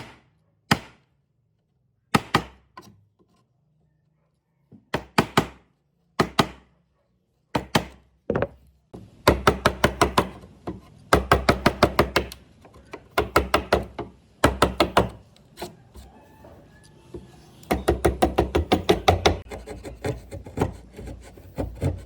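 Sharp knocks struck on wood: a few single blows spaced apart, then several fast runs of rapid strikes.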